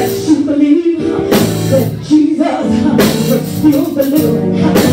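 Live church music with held chords and drum and cymbal hits, and a voice singing over it.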